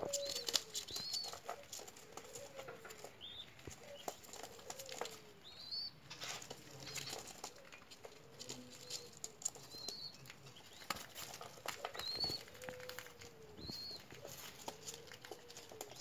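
Spotted dove chick fluttering its wings while being hand-fed, with quick rustling flaps and clicks. Over them, short high squeaks and low rising-and-falling notes recur every second or two.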